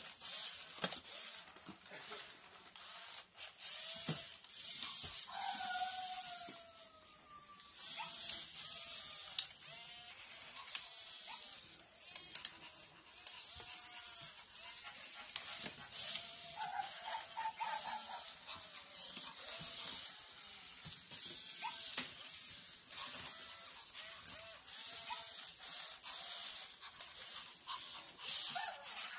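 Zoomer and i-Cybie toy robot dogs walking, their small geared motors whirring and clicking, with short electronic chirps and a falling electronic tone about six seconds in, over a steady hiss.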